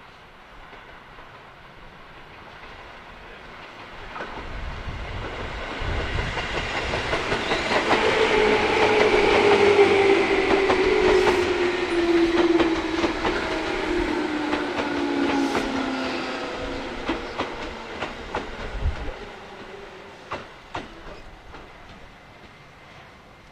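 Tobu Railway electric train passing. It grows louder, peaks about ten seconds in, then fades, with a whine that falls in pitch as it goes by and wheels clicking over the rail joints.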